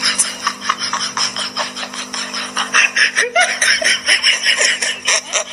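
A person laughing hard off camera in rapid breathy bursts, with a steady low hum underneath.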